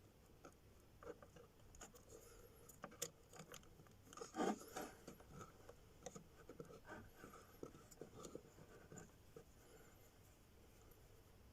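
Faint handling noises: scattered small clicks and short rubbing scrapes, with a louder rustle about four and a half seconds in.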